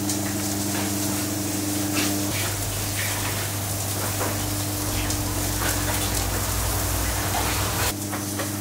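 Steady kitchen noise: a hiss like meat sizzling on a grill over a low mechanical hum, with a few faint clicks.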